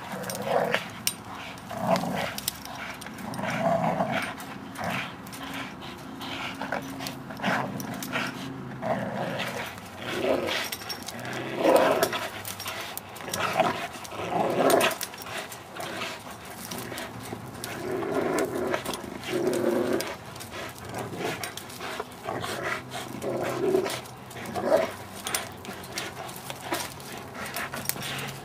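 Two American bulldogs growling in irregular bouts every second or two as they bite and tug together on a spring pole rope, with scattered sharp clicks throughout.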